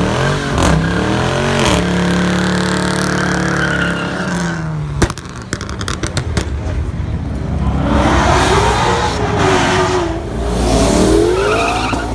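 Car engines revving and accelerating hard past the roadside, the note rising and then held steady before cutting off abruptly about five seconds in, followed by a few sharp clicks. From about eight seconds, a wavering squeal over rushing noise as tyres break loose under hard acceleration.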